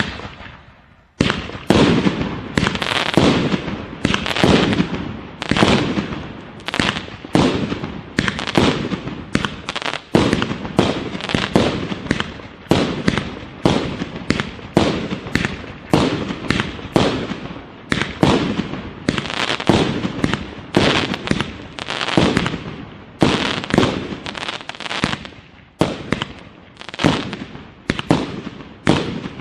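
A 1.2-inch 49-shot firework cake firing shot after shot, one and a half to two a second. Each launch bang is followed by the peony and crackling-flower bursts, which overlap into a near-continuous barrage.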